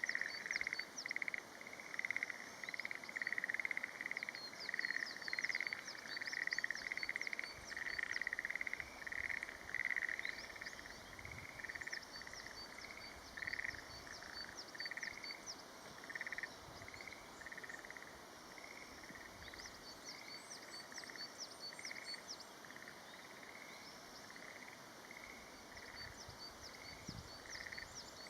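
Frogs calling in a chorus at a waterhole: short pulsed croaks repeated several times a second, louder in the first half and fading to a lower level after it. Runs of short, high chirps sound above them at intervals.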